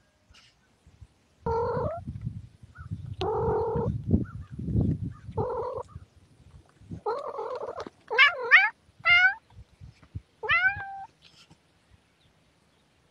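A domestic cat meowing repeatedly: a run of about eight drawn-out meows, the later ones bending up and then down in pitch. A low rumbling noise sits under the first few calls.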